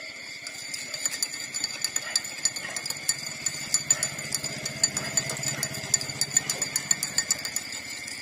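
Newborn puppies suckling at their mother's teats: rapid wet clicking and smacking, several clicks a second, starting about half a second in.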